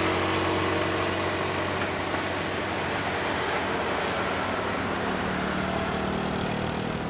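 Road traffic noise with a heavy vehicle's engine running steadily under the tyre and road hiss, slowly fading.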